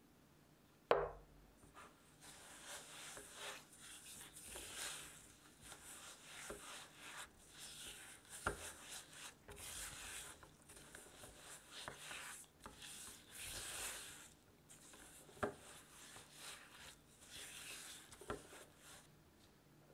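Silicone spatula mixing granulated sugar into softened butter in a stainless steel bowl: irregular scraping strokes against the bowl. A sharp knock comes about a second in, with a few lighter knocks later.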